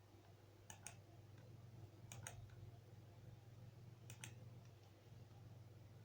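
Faint computer mouse clicks, three quick double clicks about a second and a half apart, over a low steady hum.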